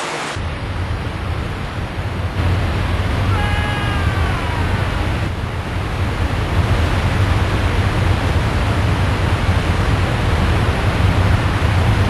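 Niagara Falls' falling water: a steady rushing wash with a heavy low rumble, growing louder about two and a half seconds in and again around six seconds. A short high call that falls in pitch sounds briefly near four seconds in.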